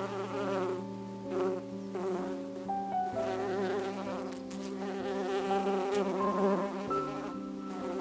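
Many honey bees buzzing together in a wavering, wobbling hum, with soft held keyboard music underneath.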